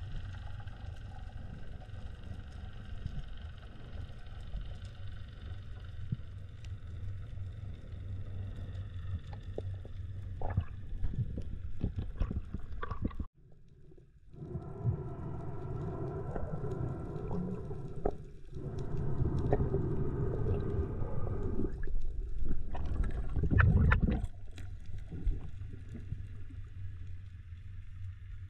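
Muffled underwater sound picked up by a diver's camera: a steady low rumble with droning, whine-like tones. It cuts out abruptly about a third of the way in and resumes louder and more tonal.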